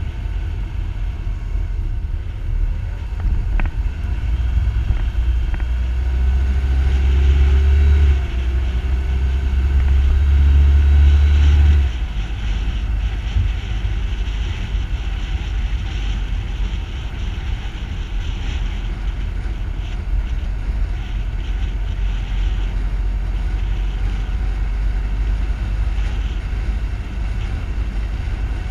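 Car driving along a street: a steady low engine and road rumble. It grows louder as the car accelerates from about six to twelve seconds in, dips briefly about eight seconds in, and then settles back to an even cruising sound.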